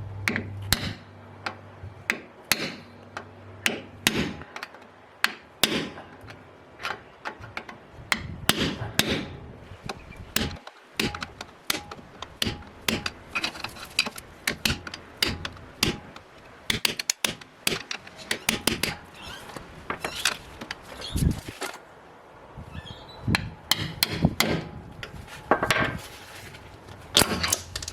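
Hammer tapping to drive the old, leaking rear axle oil seal out of a 2009 Toyota Hilux's axle housing: many sharp taps, uneven in spacing and strength, about one to three a second.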